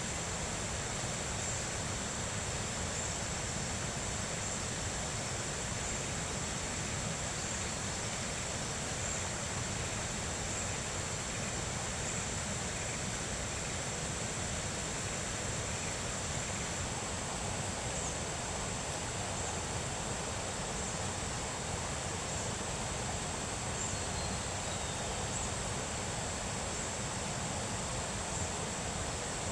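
Steady outdoor ambience: an even hiss with a constant high-pitched drone, unchanging throughout and with no distinct events.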